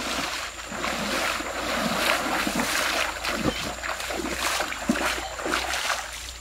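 Bare feet splashing through shallow stream water as a man wades quickly, about two splashes a second, dying away near the end.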